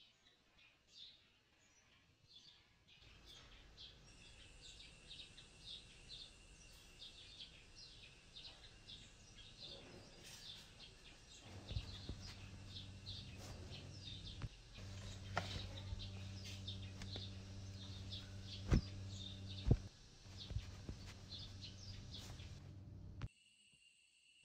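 Forest birds chirping in short, repeated calls, over a faint steady high whine. A low steady hum comes in about halfway through, with two sharp knocks near the end.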